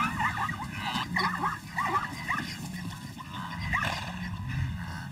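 Plains zebras calling: a run of short, barking yelps, several a second.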